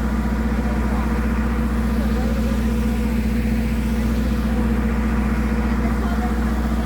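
An engine running steadily at an even pitch, a constant hum with no change in speed.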